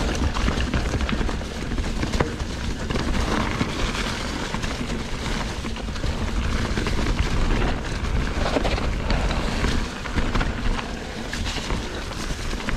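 Ibis Ripmo AF mountain bike descending a dry leaf-covered dirt trail: Maxxis Rekon tyres rolling and crunching over leaves, with frequent clicks and knocks from the bike over the bumps. Wind buffets the microphone throughout.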